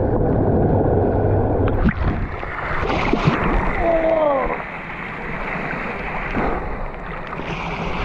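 Water pouring and splashing steadily from the overflowing mouth of a flowing well into the pool, falling on a bather's head close to the camera.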